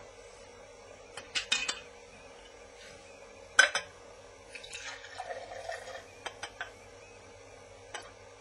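Glass bottle clinking against a drinking glass a few times, the loudest clink about three and a half seconds in, then liquid poured from the bottle into the glass for about two seconds, with another clink near the end.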